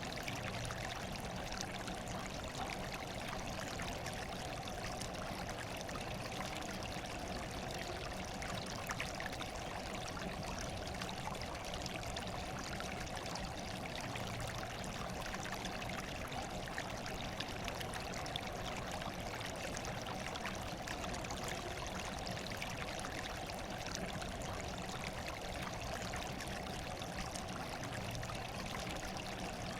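Steady running water, a continuous trickling and splashing hiss with no change in level.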